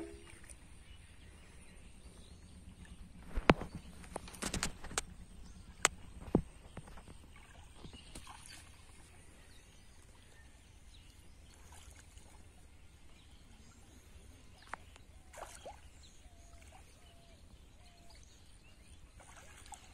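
Shallow muddy water splashing and sloshing as hands grope through it to catch fish, with a few sharp knocks in the first third and again about three-quarters of the way through.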